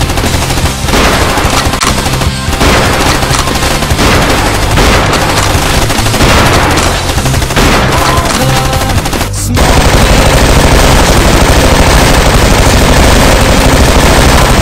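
Rapid machine-gun fire sound effects, dubbed over music. About nine and a half seconds in, after a brief break, the firing turns into a denser, steadier rattle.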